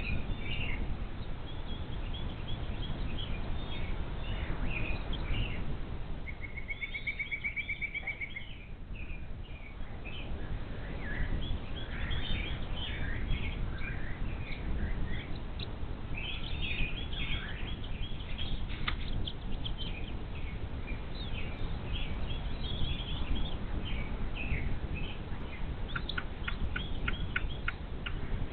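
Small birds chirping and calling repeatedly over a steady outdoor background rush, with one rapid, even trill about six seconds in.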